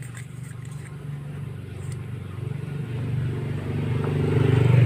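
A motor vehicle's engine running and growing steadily louder, loudest near the end as it comes close. A few faint clicks in the first second.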